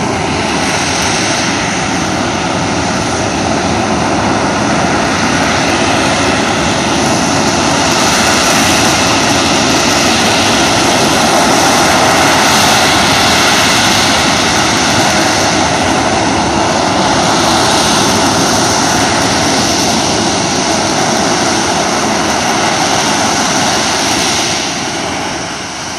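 Jet engines of fighter jets running on the runway: a loud, steady rushing noise that grows louder toward the middle and drops off shortly before the end.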